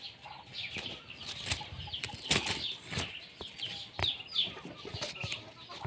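Irregular rustling and flapping in a backyard poultry pen, with faint high peeps now and then.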